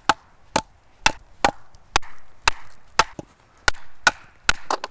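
Repeated chopping strokes into a wooden log, about two a second, knocking out notches cut into the bench frame.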